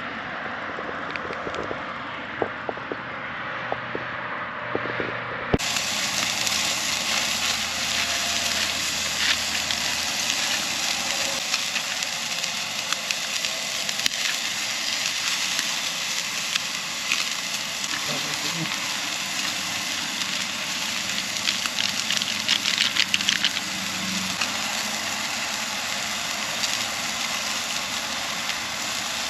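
Food frying in a pan: a steady sizzle with scattered crackles and pops, which turns brighter and fuller after a sudden change about five seconds in.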